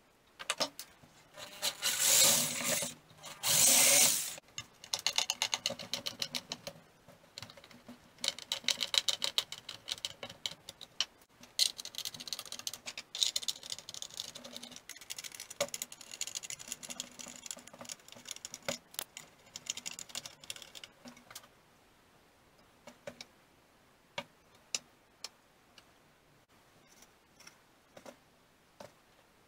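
A power tool run in short bursts on the steel disc-brake blank: two long, loud bursts near the start, then many shorter ones with clicks and knocks between. In the last third only scattered clicks remain.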